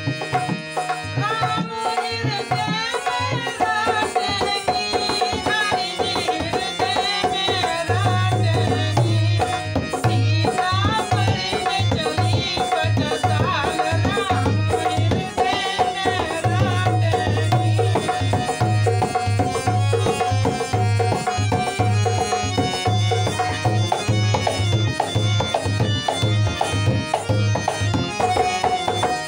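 Bhajan music: a man singing over the sustained reed tones of a harmonium, accompanied by a dholak barrel drum whose low strokes settle into a steady, driving beat about eight seconds in.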